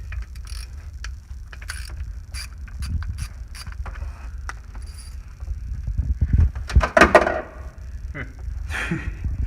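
Ratchet and socket working the 8 mm timing-chain tensioner bolts out of a Ford 5.0 Coyote engine: irregular metallic clicks and clinks, with a louder scrape about seven seconds in.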